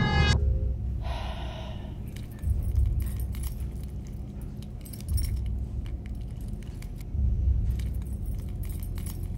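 A bunch of keys on a ring jangling and clicking against a doorknob as a key is worked into its lock. A low thump sounds underneath every two to three seconds.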